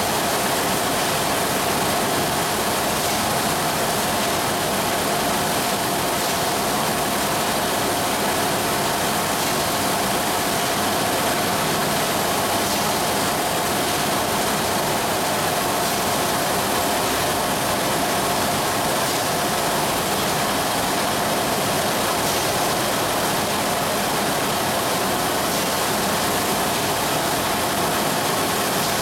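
Automatic high-speed OPP labeling machine for round bottles running continuously: a steady, even mechanical whirr with a constant mid-pitched whine through it.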